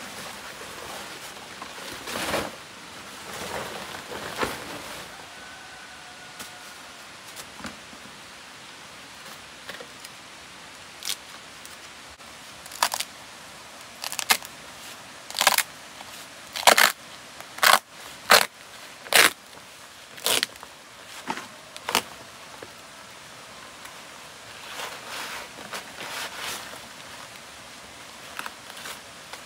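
A run of about a dozen sharp taps and knocks, hard objects striking, spaced irregularly about a second apart through the middle, with rustling handling sounds before and after.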